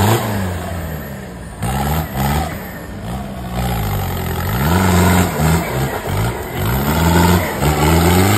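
Isuzu off-road pickup's diesel engine revving hard under load in deep mud, its pitch climbing and dropping back several times as the throttle is worked on and off.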